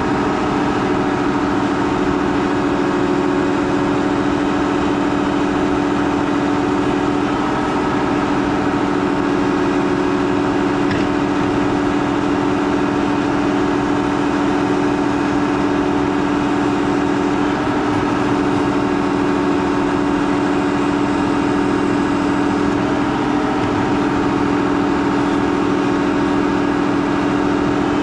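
Case IH Quadtrac 580 tractor engine running at a steady, unchanging speed while pulling a 14-furrow plough.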